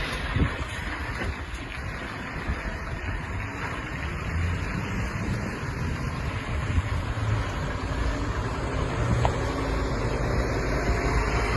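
Diesel engine of a heavy farm haulage vehicle, a lorry or tractor, running steadily as it works, growing slightly louder near the end.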